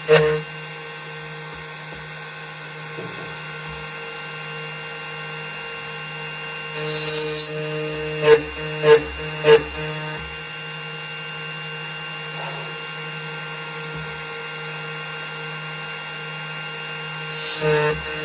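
CNC key-cutting machine running steadily as its cutter mills a Toyota TOY43 key blank, with a constant motor whine. It gets louder about seven to ten seconds in, with three sharp peaks, and again near the end.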